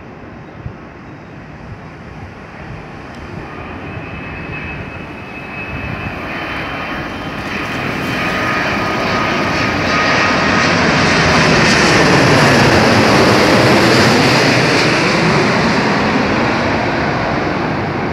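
Twin-engine jet airliner on final approach with gear down, passing low overhead. Its engine noise builds over several seconds, with a high engine whine, to a peak about two-thirds through, sweeping in tone as it goes over, then eases off slightly.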